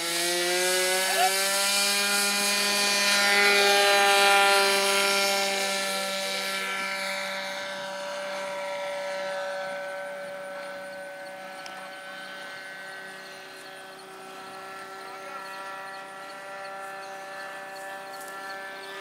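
RC model airplane's engine running up to full throttle, its pitch rising over the first second, then holding a steady buzz that fades as the plane climbs away.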